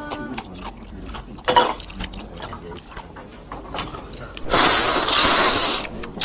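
Jang-kalguksu noodles being slurped: a loud, hissing slurp of about a second and a half, starting past the middle, over a background of faint clicks.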